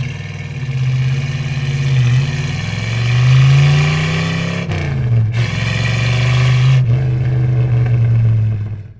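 1964 Ford Falcon's engine running and being revved: the pitch climbs to a peak about three seconds in and falls back, with a few brief dips and short breaks near the middle.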